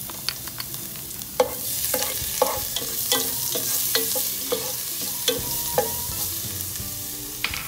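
Minced garlic sizzling as it fries in hot oil in a pot, while a spatula stirs it and knocks against the pot about twice a second, each knock ringing briefly.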